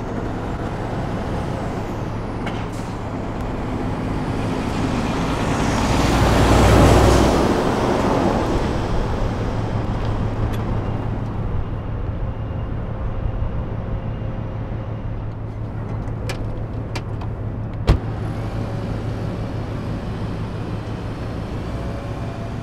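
Road traffic: a steady low engine hum, with a vehicle passing close by that swells and fades, loudest about seven seconds in. A single sharp click comes later on.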